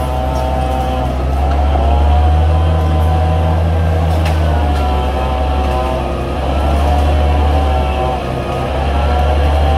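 Crawler bulldozer's diesel engine running steadily under load, its pitch rising and falling every few seconds.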